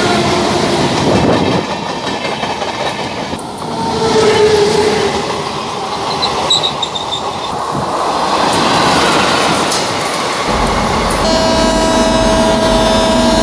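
Passenger train hauled by an electric locomotive passing close by at speed, a steady rumble with wheels clattering over the rail joints. About eleven seconds in it gives way to a steady, held horn of several notes.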